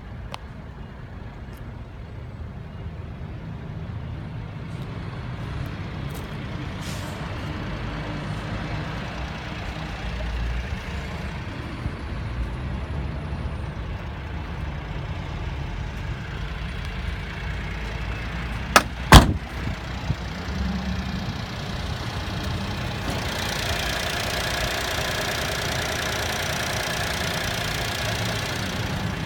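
Honda Acty truck's small three-cylinder engine idling steadily, heard more clearly and with more hiss for the last several seconds as the engine bay is opened. Two sharp knocks come about two-thirds of the way through.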